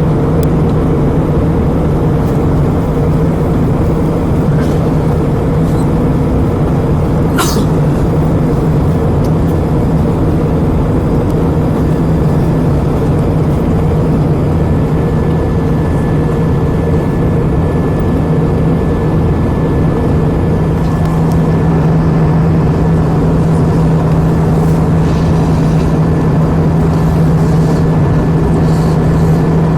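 Steady cabin drone of an Airbus A320 with its engines running, a constant low hum over rushing air noise. A single sharp click comes about seven seconds in.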